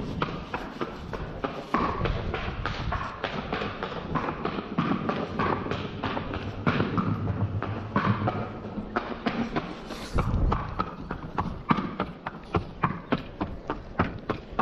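A quarter horse's hooves clip-clopping on concrete as it walks, a steady run of sharp hoof strikes that settles into an even beat of about four a second near the end. A louder thump comes about ten seconds in.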